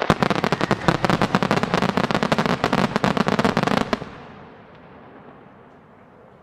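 Final barrage of a Japanese starmine fireworks display: dense, rapid crackling and popping of many bursting shells and crackling stars. It stops abruptly about four seconds in and drops to faint background noise.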